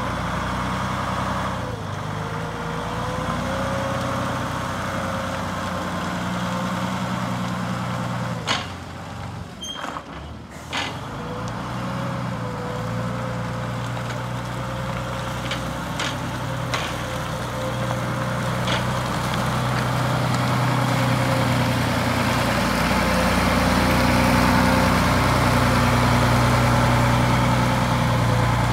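Engine of a Silverdalens Mekaniska Atlet 6-ton forklift running as it drives, with a wavering whine above the engine note. There are a few sharp knocks around ten seconds in, and the engine grows louder near the end as the forklift comes close.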